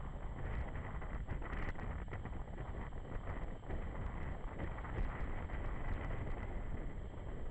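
Motorcycle riding sound picked up by a bike-mounted camera: the BMW G 650 GS Sertao's single-cylinder engine running at low town speed under steady wind noise on the microphone and road rumble, with a few light clicks.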